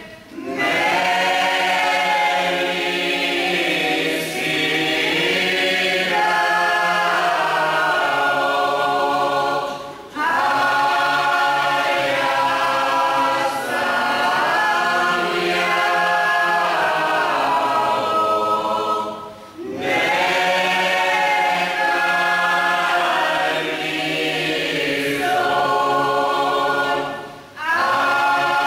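Mixed choir of men's and women's voices singing a Lenten church hymn unaccompanied, in long held phrases of about nine seconds each, with short pauses for breath between them.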